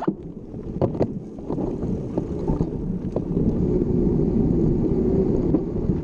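Wind noise on the microphone of a camera carried on a moving mountain bike: a steady low rumble with a few sharp clicks and rattles in the first two seconds, growing louder about three seconds in.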